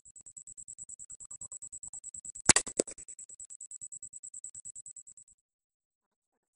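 A single rifle shot, a sharp crack about two and a half seconds in, followed about a third of a second later by a second, slightly weaker crack. A high, rapidly pulsing tone runs underneath and stops about five seconds in.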